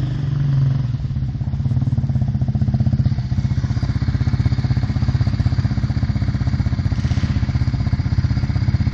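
Off-road vehicle engine running at low speed with a steady, rapid, even firing pulse.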